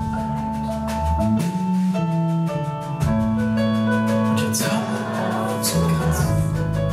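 Live band playing a song on piano, drum kit and electric bass, with sustained piano notes over a bass line and cymbal crashes.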